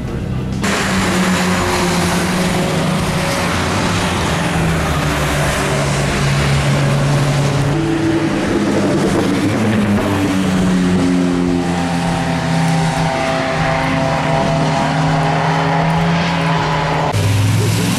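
Racing car engines at full throttle climbing a hill, their notes rising and falling through gear changes over a steady hiss of tyres on a wet track. A second, higher-revving engine note joins about twelve seconds in.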